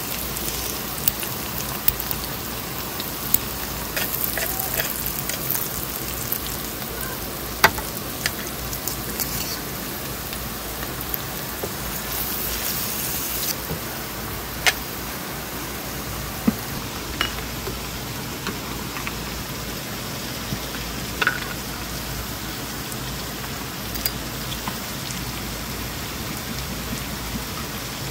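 Food frying: a steady sizzle with many scattered sharp pops and crackles, the hiss easing a little about halfway through.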